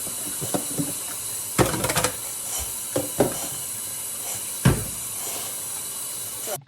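Kitchen faucet running steadily into the sink, with a few knocks of containers being handled under the water. The water cuts off suddenly near the end.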